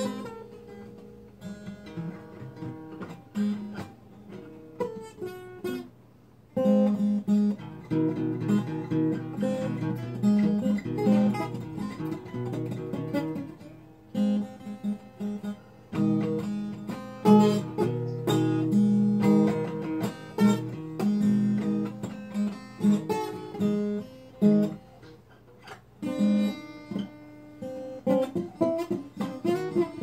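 Solo acoustic guitar: soft playing for the first few seconds, then louder strummed chords from about six seconds in, with two short breaks.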